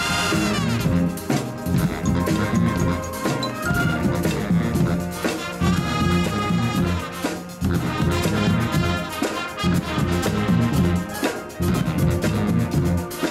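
Marching band playing: brass and woodwinds over drums, with marimba in the front ensemble.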